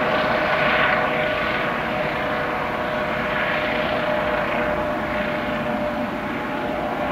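Eurocopter EC155 twin-turbine helicopter in flight: steady rotor and engine noise with a constant whine.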